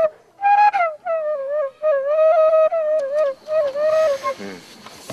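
A flute playing a melody in short phrases, its notes sliding down at their ends. Near the end the tune thins out into a soft, breathy hiss before it picks up again.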